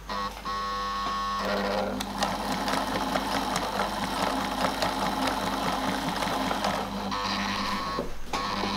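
Vintage Pfaff 230 sewing machine running: its electric motor spins up with a steady hum, then the needle mechanism stitches at speed with rapid, even ticking, with a short break near the end.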